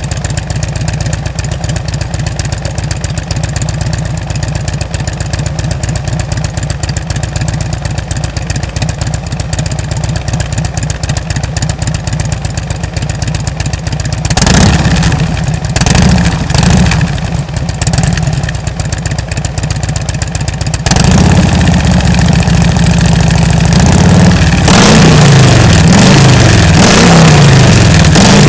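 2007 Harley-Davidson Ultra Classic's Twin Cam 96 V-twin breathing through Rush slip-on mufflers with 1.75-inch baffles, idling with an even loping beat. About halfway it is blipped several times, then held at higher revs that rise and fall repeatedly near the end.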